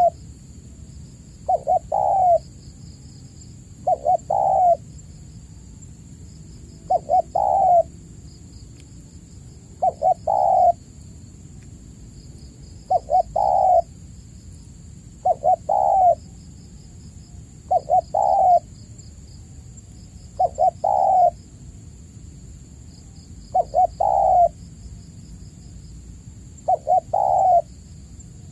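Spotted dove (tekukur) cooing over and over, about every two and a half to three seconds. Each call is a few quick notes ending in a longer, fuller coo. A faint steady high hiss and faint high trills run behind it.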